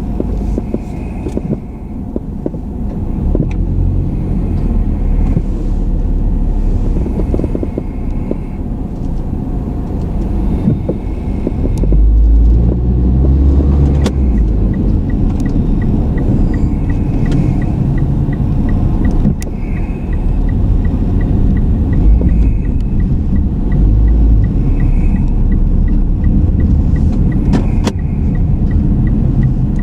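Car driving on city roads, heard from inside the cabin: steady engine and tyre rumble that swells at times. From about halfway a light, regular ticking runs on.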